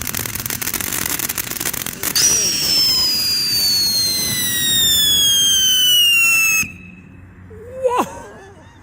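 Ground fountain firework crackling and hissing, then a loud whistle that slides slowly down in pitch for about four and a half seconds before cutting off suddenly.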